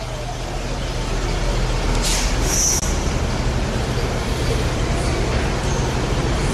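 Street traffic noise dominated by a city bus engine running with a steady low hum, and a short hiss of air brakes about two seconds in.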